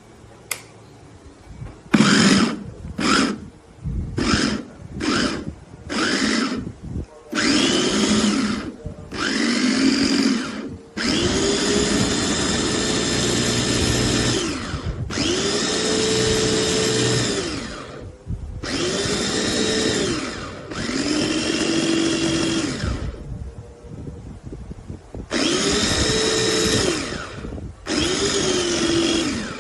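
Electric food chopper motor of a Gaabor 2L meat grinder run in pulses: several quick taps at first, then longer bursts of one to three seconds. Each burst rises in pitch as the blades spin up and falls away as they wind down.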